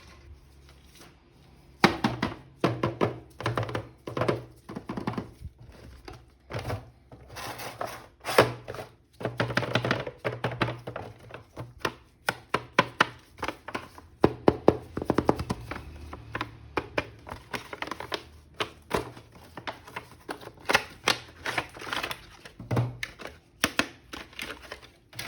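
Rapid, irregular clicks and knocks of a plastic action figure and its packaging being handled.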